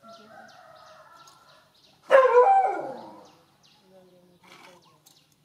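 A dog whines steadily, then gives one loud howling yelp about two seconds in that falls in pitch and fades over about a second. It is held while ticks are pulled from its skin, and the cry is typical of a dog in discomfort from the handling.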